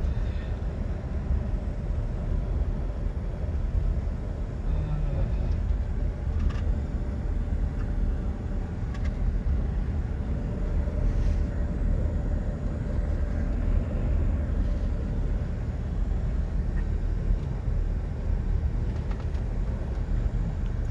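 Cabin noise of a car driving at low speed: a low, steady rumble of engine and tyres on the road.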